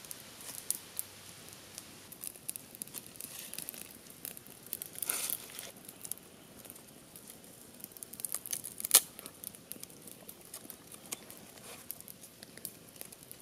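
Dry split bamboo strips and plant fibre being handled, bent and tied by hand, giving a run of small crackles, rustles and clicks. A sharper snap comes about nine seconds in.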